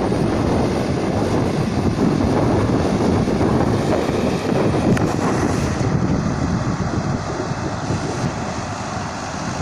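Erkunt tractor's diesel engine running under load as it pulls a tillage implement through stubble soil, with wind buffeting the microphone.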